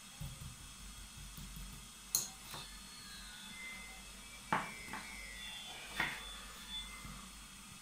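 A few sharp light clicks and knocks of painting supplies being handled and set down on the table, spread over several seconds, the first the loudest.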